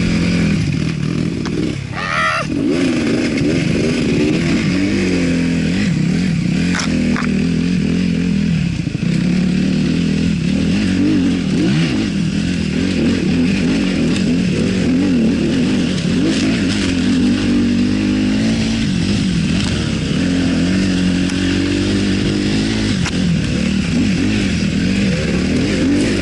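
Yamaha WR250F's single-cylinder four-stroke engine through an Akrapovic exhaust, running loud, its pitch rising and falling over and over as the throttle is opened and closed.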